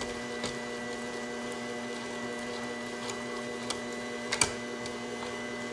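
Sunbeam stand mixer's motor running steadily on its low kneading speed, the dough hook turning a soupy whole wheat dough in a stainless steel bowl. A few light knocks of a spatula scraping against the bowl, the sharpest about four seconds in.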